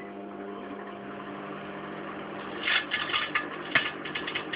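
Microwave oven running with a steady electrical hum. From about two and a half seconds in, sharp crackling snaps come from inside it, the sound of arcing in the oven.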